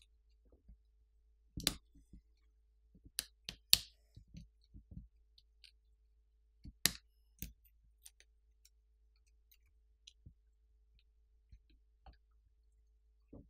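Scattered sharp clicks and small ticks of a plastic pry pick and fingers working inside a smartphone, prying up a flex-cable connector and lifting out the front camera. The loudest clicks fall in the first half, with lighter ticks after.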